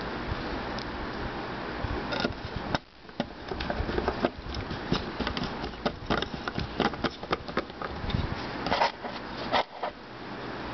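Small screwdriver working the screws on the platter hub of an opened hard drive, giving a run of sharp metal clicks and scrapes from about three seconds in until near the end, over a steady low buzz.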